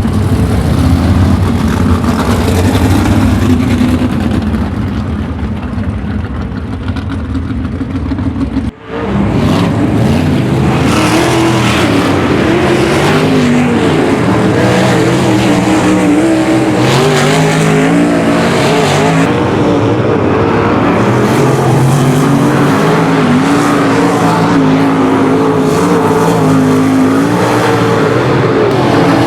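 410 sprint cars' V8 engines: a low, steady engine sound for the first nine seconds, then, after a sudden cut, several cars at speed together, their engine notes rising and falling as they throttle on and off.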